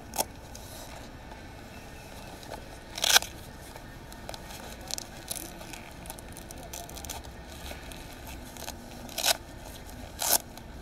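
Motorcycle gloves being pulled on and fastened: hook-and-loop cuff straps ripping open and pressing shut in four short, sharp bursts, with fabric rustling and small clicks in between.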